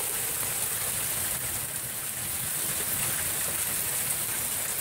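Hail and rain pelting down on roofs: a steady, dense hiss with faint ticks of hailstones striking.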